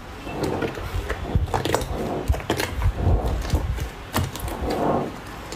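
Slime being squeezed and worked by hand: irregular sharp clicks and pops over soft squishing.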